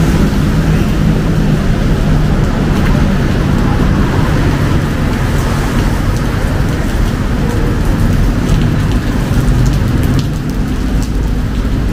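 Steady rain over the low, continuous hum of city traffic, with scattered sharp drop taps.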